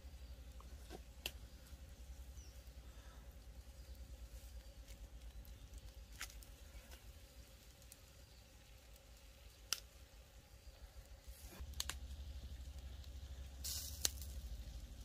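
Wood campfire burning faintly, with a few sharp, irregularly spaced pops and crackles over a low steady rumble.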